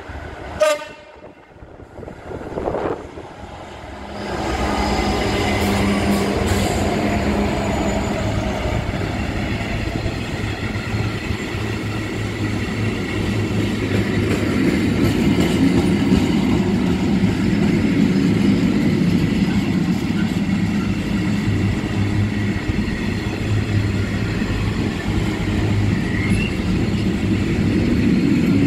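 A train horn gives a very short, sharp blast about a second in. From about four seconds in, a train runs past loud and steady, with a low hum under the noise of the wheels.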